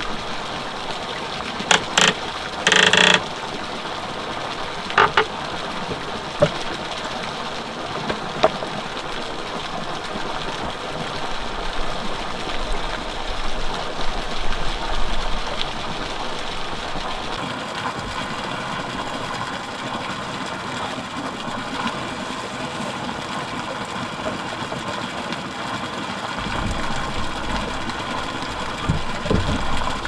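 Generator engine running steadily, powering the lights, with a few short sharp knocks about two to three seconds in.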